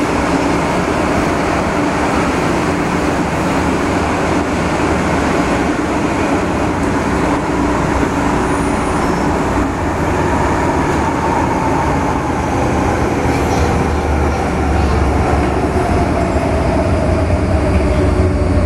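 MTR M-Train electric multiple unit heard from inside the carriage while running underground: a steady rumble of wheels and running gear. In the second half a whine slowly falls in pitch and the low rumble grows louder.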